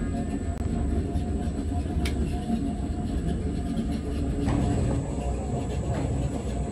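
Factory machinery running: a steady low mechanical rumble with a thin high whine over it. It grows a little fuller about four and a half seconds in.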